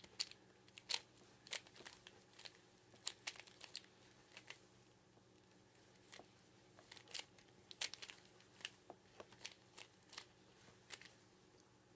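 A Rubik's cube being turned by hand: its plastic layers give short, irregular clicks in quick clusters as the second-layer edge pieces are worked into place.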